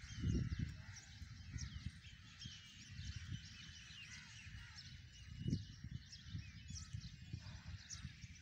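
Small birds chirping and twittering throughout, with irregular low rumbles of wind on the microphone, strongest at the start and about five and a half seconds in.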